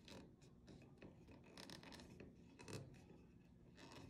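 Faint, brief scratchy rubs of fingertips pressing and smoothing adhesive vinyl wrap onto a rifle's lower receiver, heard a handful of times.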